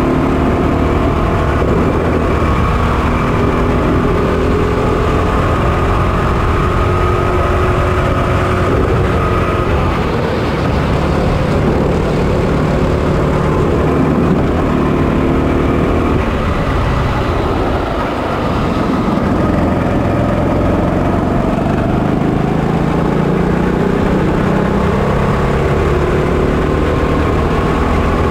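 Onboard sound of a racing kart's 200cc, 6.5 HP GX200-type single-cylinder four-stroke engine running hard at speed. Its pitch rises and falls with the corners, dropping in pitch and loudness about two-thirds of the way through before climbing again as it accelerates.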